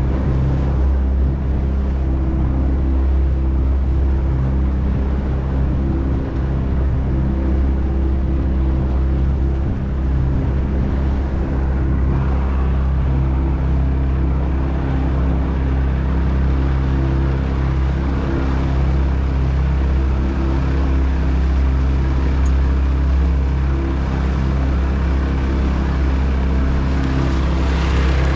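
Outboard motor of a Trophy 1802 boat running at a steady cruising speed, a constant hum, with water rushing along the hull and churning in the wake.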